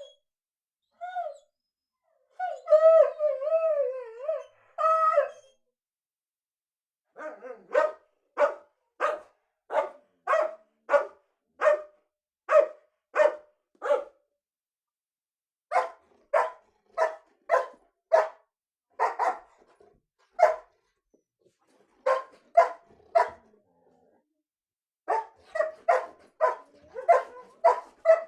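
A dog whining in a wavering, up-and-down pitch for the first few seconds. Then it barks in runs of short sharp barks, about one and a half a second, with brief pauses between the runs and a quicker run near the end.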